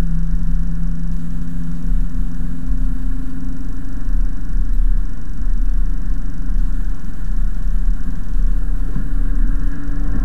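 Mercedes-Benz C-Class coupe driving steadily, heard from inside the cabin: a continuous low engine hum with a slight rise in pitch, over road noise from tyres on a wet road.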